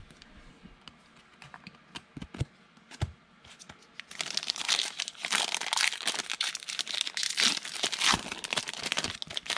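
A few light clicks and taps of trading cards and a plastic card holder being handled, then, from about four seconds in, a foil trading-card pack wrapper being torn open and crinkled.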